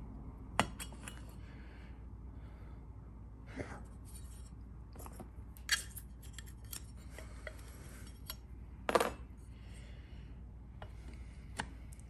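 Small metal parts of a Baldwin mortise lock clicking and clinking as they are fitted back into the lock case by hand. The clicks come on and off, the loudest a short metallic rattle about nine seconds in.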